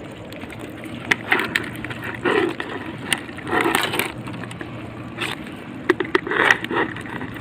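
A speared belawis fish is pulled off a spear shaft into a plastic bucket of live crabs: scraping and knocking against the bucket, scattered sharp clicks, and a few short rustling, flapping bursts.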